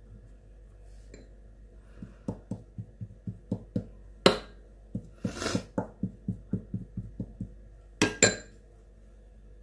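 A run of soft quick taps, about four a second, as flour paste is dabbed onto a spring roll wrapper against the countertop, with a few sharper clicks and knocks in between.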